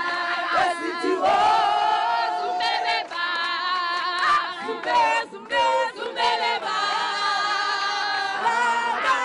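A crowd singing together unaccompanied, with long held notes.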